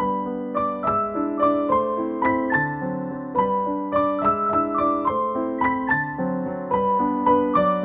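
Background piano music: a gentle melody of single notes, about three a second, over sustained lower notes.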